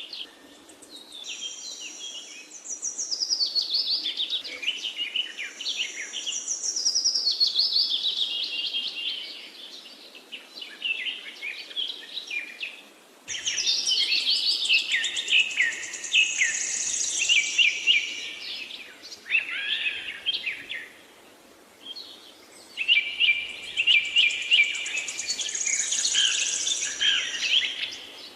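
A flock of small birds chirping and twittering together in a dense, overlapping chorus. It comes in three long bouts with short lulls between them.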